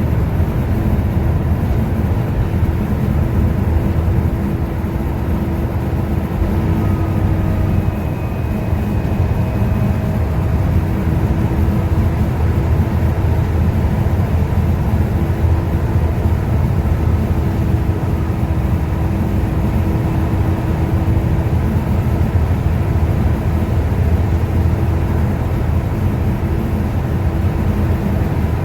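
Volvo B7TL double-decker bus's six-cylinder diesel engine and drivetrain running under way, a loud steady rumble with a constant whine.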